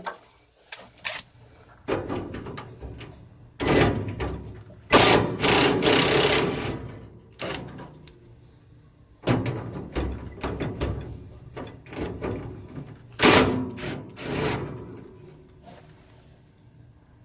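Wrench work on the mounting nuts of a truck's front grille: several bursts of rapid clicking and rattling a few seconds apart, the longest about five seconds in.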